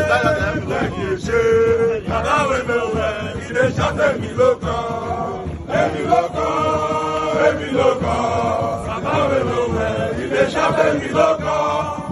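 A large group of men chanting a song together in unison, continuous throughout.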